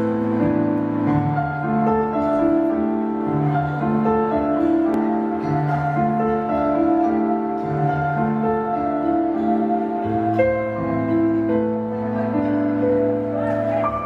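Live band's instrumental introduction led by keyboard: slow, sustained piano-like chords over a low held note, the notes changing at an even pace about every second.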